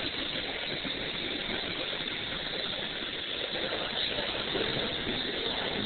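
Steady background din of a busy indoor hall, an even hiss and rumble with no distinct events, heard through a low-quality phone microphone.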